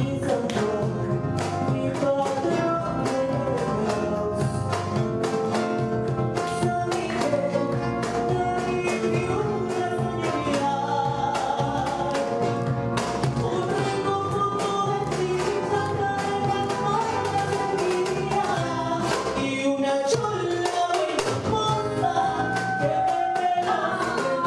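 Live tondero, the northern Peruvian song-and-dance form: voices singing over guitar and cajón, with a steady beat of percussive strikes.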